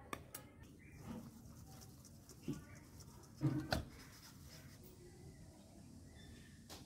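Faint handling clicks, then a couple of louder knocks about three and a half seconds in as a stainless-steel colander of cornflour-coated paneer cubes is lifted and shaken, the cubes tumbling inside.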